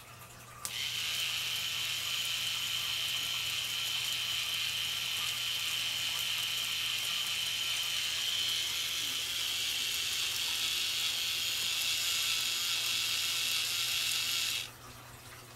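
Small electric motor driving a K'NEX conveyor's plastic gears and chain: a steady high whir that switches on abruptly about a second in and cuts off abruptly near the end.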